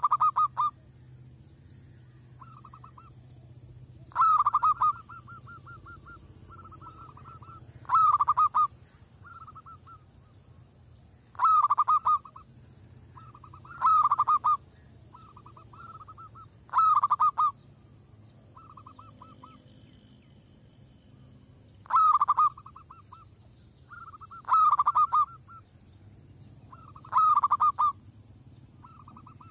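Zebra dove (merbok) cooing: about nine loud trilled phrases, roughly every three seconds, with softer trilled notes between them.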